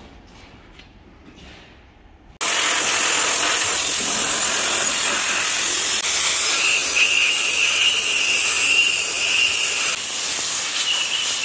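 Aerosol can of anti-corrosion rust-converting coating spraying in one long continuous hiss. It starts suddenly a couple of seconds in, and a thin whistling tone joins it about halfway through.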